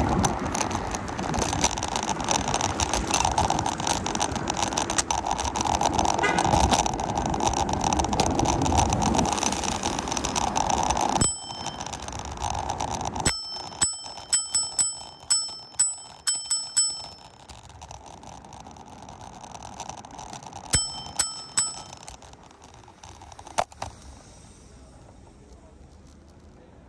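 Bicycle bell rung in a quick series of dings, about three a second for several seconds, then a few more dings shortly after. Before it, loud city traffic noise fills the first half and drops away suddenly.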